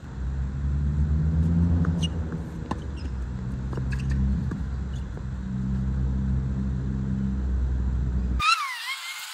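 A motor vehicle's engine running with a low, steady drone, louder than anything else. A handful of sharp knocks of tennis balls struck by racquets come in the first half. About eight seconds in, the sound cuts off abruptly to a thin, chirpy track.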